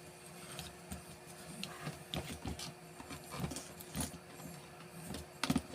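Irregular small clicks, crackles and scraping as the brittle nylon cover of a steel lockout cable is rolled and worked off by hand, with a quick cluster of sharper clicks near the end.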